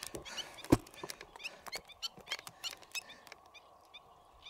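A bird calling over and over in short high chirps, about three a second. A single sharp knock comes a little under a second in, the loudest sound here.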